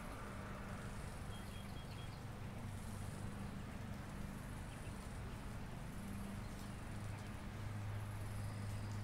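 Outdoor spring park ambience: high chirring in repeating patches over a steady low hum, with a few short high chirps about a second and a half in.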